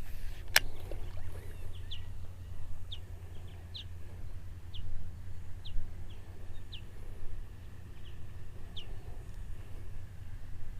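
A bird calling in the marsh with short, high chirps about once a second, over a steady low rumble. A single sharp click sounds near the start.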